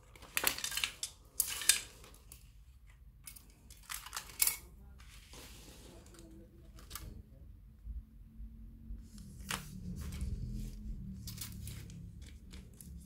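Plastic parts of an air-conditioner deflector being handled: sharp clicks and rattles of plastic strips and clips knocking together and against the perforated plastic panel, in clusters at the start and again in the second half.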